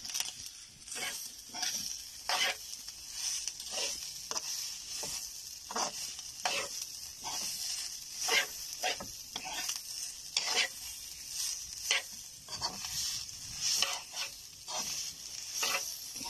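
Freshly grated coconut toasting and sizzling in a wok over a wood fire while it is stirred, the utensil scraping the pan about twice a second over a steady high hiss. The coconut is being cooked before the brown sugar goes in.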